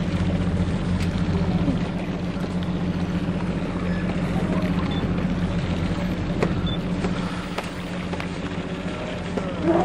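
Boat engine running steadily: a low, even drone with a hiss of wind and water over it.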